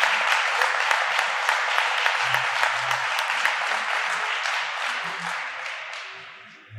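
Audience applauding steadily, the clapping dying away over the last couple of seconds.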